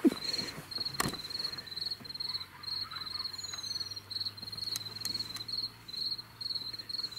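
Crickets chirping steadily, a high chirp repeating a few times a second, with one sharp click about a second in.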